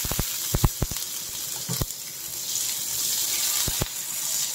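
Butter sizzling and foaming in hot oil in a frying pan, a steady hiss with several sharp spits and pops in the first second and a few more later.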